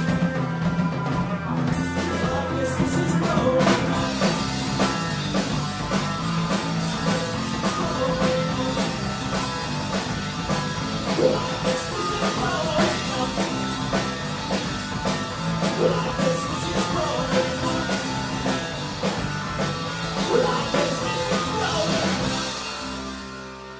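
Live rock band playing a pop-punk cover, with drum kit, electric guitars and singing; it fades out near the end.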